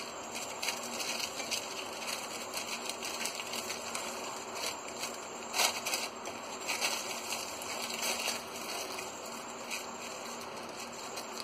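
Thin white paper rustling and crinkling as it is folded and rolled by hand around a shawarma wrap, in irregular crackles, with a louder crinkle about halfway through.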